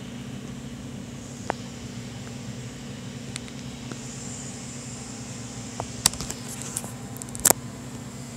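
A steady low hum, with scattered sharp clicks and scuffs from kittens pawing at and bumping into the phone as they play-fight. The loudest clicks come in a cluster from about six to seven and a half seconds in.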